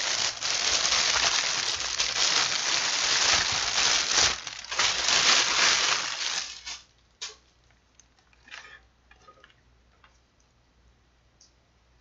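Plastic packaging crinkling and rustling as it is handled for about six seconds, stopping abruptly, followed by a few light clicks and taps.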